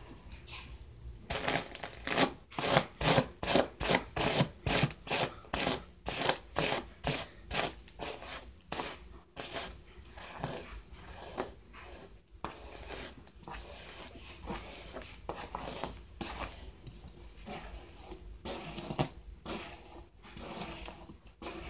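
Hairbrush strokes through long hair: a quick, even run of brushing strokes, about two to three a second, for the first several seconds, then softer and more irregular strokes.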